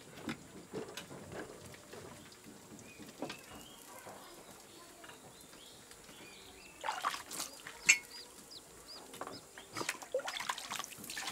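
Dishes washed by hand in a basin of water: plates and bowls clattering and knocking, with one sharp clink about eight seconds in and water sloshing and trickling near the end. Faint bird chirps in the background.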